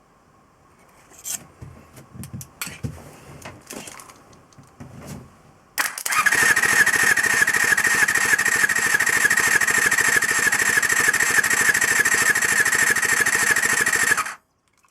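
Electric starter cranking a Honda MC14E 250 cc inline-four motorcycle engine for about eight seconds during a compression test: a steady, fast-pulsing whir with a high whine, which stops suddenly. Before it, a few light clicks and knocks of handling.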